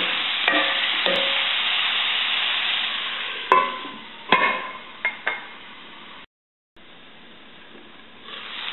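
Brussels sprouts and zucchini sizzling in hot oil in a pan as they are stirred, then a stainless-steel lid clinks down onto the pan twice and the sizzle goes muffled and quieter. The sizzle rises again near the end.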